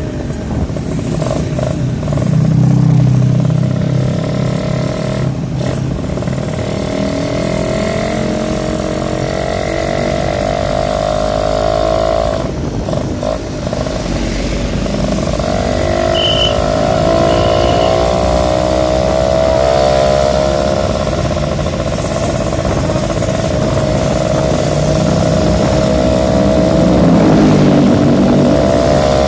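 Suzuki Tornado motorcycle engine running under way, its note climbing with acceleration and easing off again, with short breaks twice in the first half as at gear changes.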